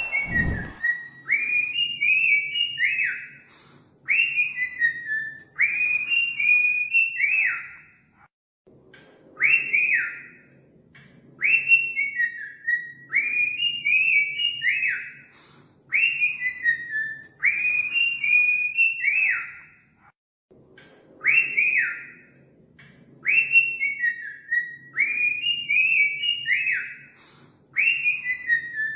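Cockatiel whistling its song: short warbling phrases of quickly rising and falling whistles, repeated about every two seconds, with a couple of brief breaks.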